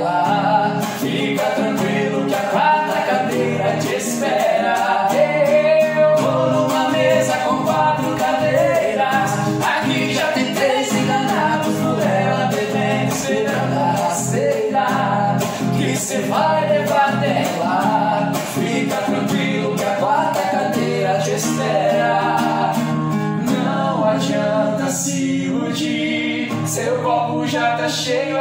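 Sertanejo song sung by a male duo, with acoustic guitar strumming under the voices.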